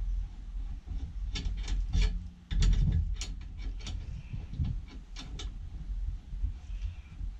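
Hand tools at work: a quick run of sharp clicks and knocks, the loudest about two and a half seconds in, over a steady low rumble.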